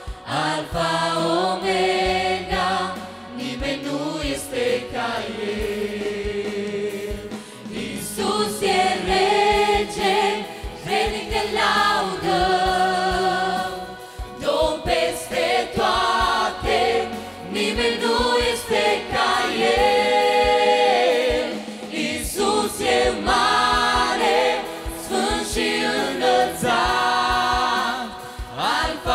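A mixed group of young women's and men's voices singing a Romanian worship song into microphones. The voices sing in harmony, softer for the first several seconds and fuller from about eight seconds in.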